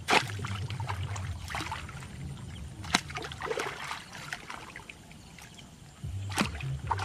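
A hoe chopping into wet mud and shallow ditch water, with splashing and sloshing between the blows. There are three sharp strikes about three seconds apart, the first the loudest.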